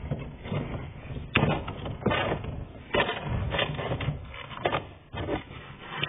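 Ford Fiesta gear knob and its rubber gaiter being twisted and pulled up off the gear lever by hand: irregular plastic clicks and knocks with rubbing and rustling in between.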